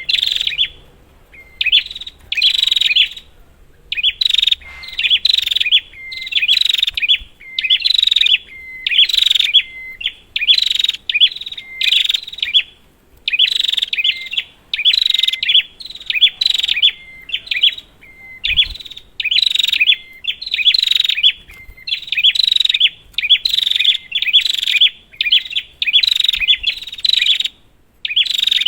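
Prinia (prenjak) calling: loud, rapid bursts of chattering notes, about one a second with short gaps between. It is a lure call used to set a quiet prenjak singing.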